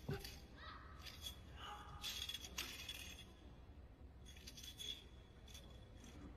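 A wushu spear routine: a low thump just after the start, then several short swishes and rattles as the spear is swung and shaken, with a few brief squeaks between them.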